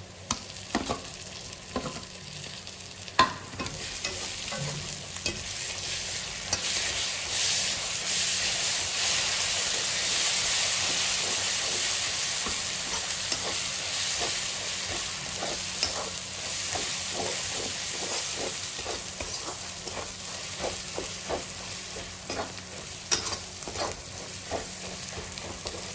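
Onion masala and freshly added ginger paste sizzling in hot oil in a metal wok while a spatula stirs and scrapes it. The sizzle swells a few seconds in, and the quick scraping strokes come thick and fast through the second half.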